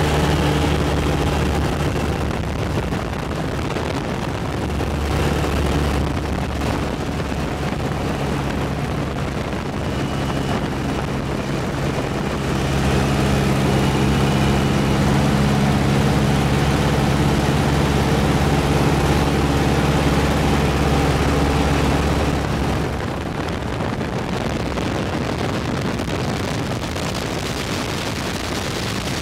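Piston aircraft engine droning steadily, heard from inside the cabin of the chase plane with wind noise over it. The drone swells louder about midway and drops back again about three quarters of the way through.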